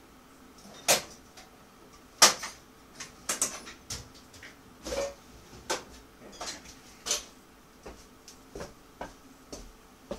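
Hand tools clattering as someone rummages through a box of them: a run of sharp clicks and knocks at uneven intervals, the loudest about one and two seconds in.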